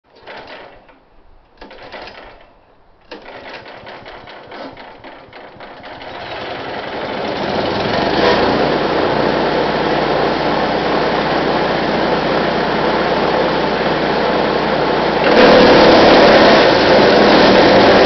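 Brush Master 3-inch wood chipper's small engine being pull-started: two short pulls that don't catch, then it fires about three seconds in, builds up to speed over the next few seconds and runs steadily. It runs louder from about fifteen seconds in.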